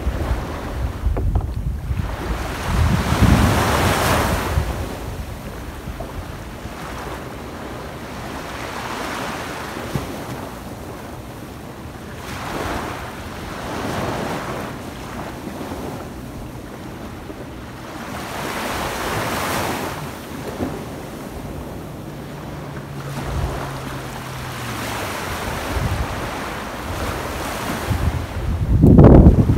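Small waves breaking and washing up a sandy beach, swelling and fading every few seconds. Wind buffets the microphone with low rumbles, the strongest near the end.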